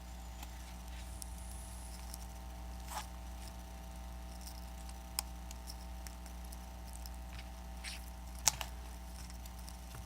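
Scattered light clicks and taps of small tools and parts being handled, the sharpest about eight and a half seconds in, over a steady low hum.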